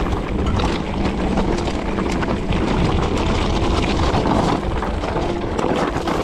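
E-bike riding fast downhill over rough ground: a continuous rumble of tyres and rushing air on the microphone, with many small knocks and rattles from the bike over bumps.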